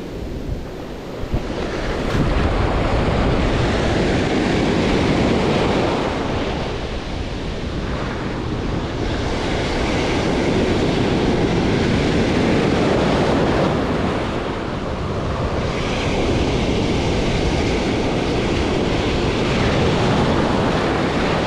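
Ocean surf breaking and washing through the shallows, rising and easing as each wave comes in, with wind buffeting the microphone.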